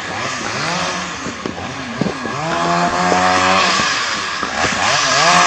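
A motor vehicle engine revving up and down, steadying for about a second in the middle, over a background of rough noise.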